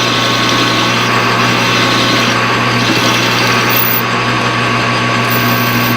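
Machine tool running steadily while a boring bar cuts into the bore of a metal workpiece: a constant motor hum and whine under an even cutting hiss.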